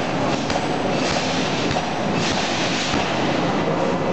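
Loud, steady forge-shop machinery noise around a hot-forging electric screw press, with a few light metallic knocks through it.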